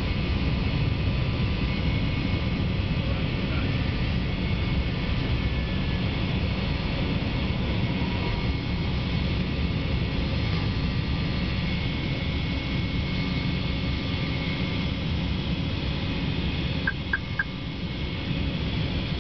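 Airbus A318 jet engines and airflow running steadily, heard inside the passenger cabin during the takeoff climb. Three short ticks sound close together near the end.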